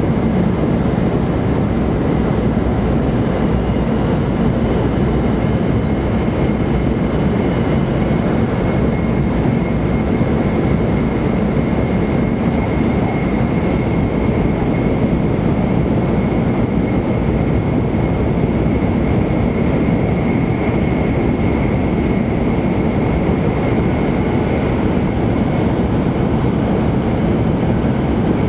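Cabin noise of a JR Kyushu 800 series Shinkansen running at speed: a steady, loud rumble of wheels and air, with a thin high whine held throughout.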